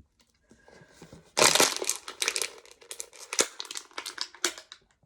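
Crinkling, crushing crackles close to the microphone, a dense run of sharp crackles that is loudest about one and a half seconds in and dies away just before the end.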